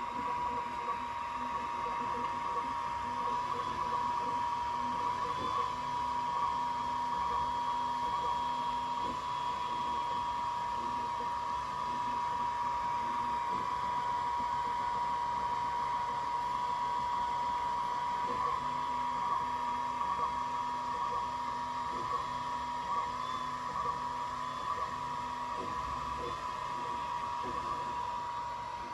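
JICCODA 10-watt diode laser engraver running while it etches markings into a steel parallel, giving a steady whine with a fainter machine hum underneath.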